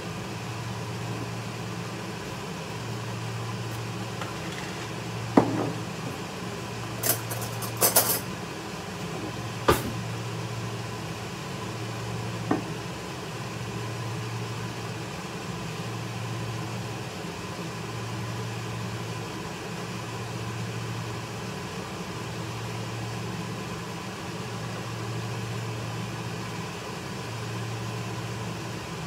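A steady low mechanical hum that swells and fades every second or two, with a few sharp clinks of utensils against dishes in the first half.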